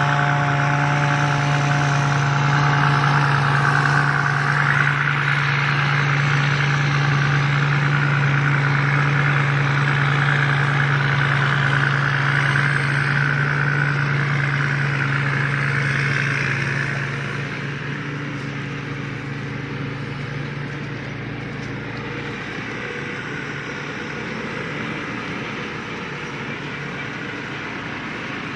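Combine harvester's diesel engine running steadily with a deep hum, then becoming quieter and fainter about 17 seconds in.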